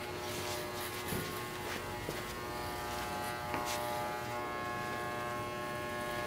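Corded electric hair clippers buzzing steadily as they are run over a scalp, shaving a head down to bare skin.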